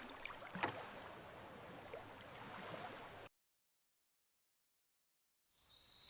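Water noise with a few light knocks, fading, then cut off to dead silence a little past halfway. Faint outdoor ambience returns near the end with a high bird chirp.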